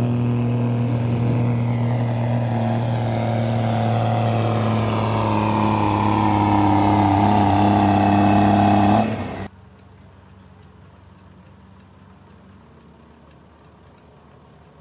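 Diesel engine of a second-generation Dodge Ram pickup running hard under load as it pulls a weight sled, held at steady high revs with a whine that grows louder over the last few seconds. The sound cuts off abruptly about nine and a half seconds in, leaving only faint background noise.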